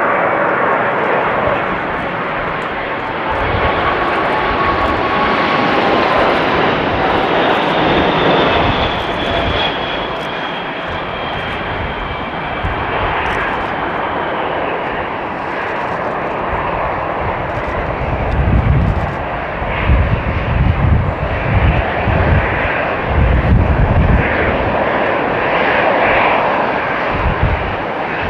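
Boeing 747-400F jet engines on approach and landing: a steady jet roar with whine tones that slowly fall in pitch. In the second half, as the jet rolls out on the runway, deep low rumbles swell and fade in uneven surges.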